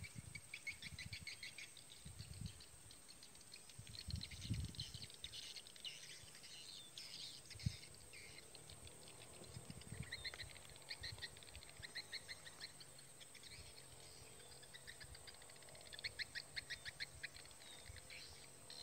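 Faint birdsong: small birds calling in repeated quick chirping trills, with a steady high insect-like whine beneath. A single sharp knock comes about eight seconds in.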